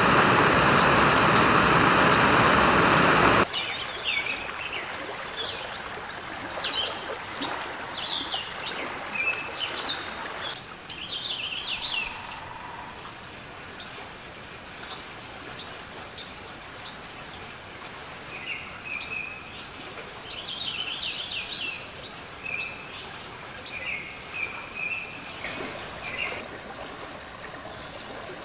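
A loud, steady rushing noise like running water cuts off suddenly about three and a half seconds in, and wild songbirds go on singing and chirping with many short, high calls over a quiet background.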